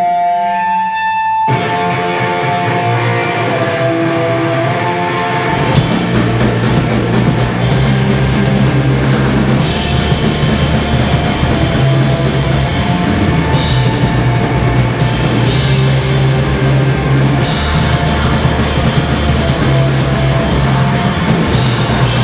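Live rock band starting a song: sustained guitar notes open it, then drums and bass come in about five seconds in and the full band plays loud, distorted rock.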